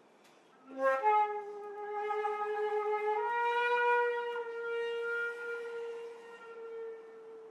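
Solo flute: a quick low grace note flicks up into a sharp, accented attack about a second in, then a long held note that steps up slightly about three seconds in, with an airy, breathy edge, swelling and then slowly fading away.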